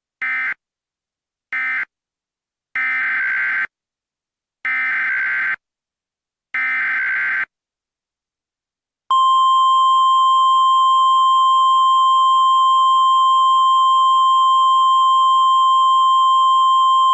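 NOAA Weather Radio SAME data bursts: two short end-of-message bursts, then three longer header bursts about two seconds apart, each a harsh warbling buzz. They close one warning and open the next. After a short pause, about nine seconds in, the steady, loud single-pitch Weather Radio warning alarm tone begins and holds.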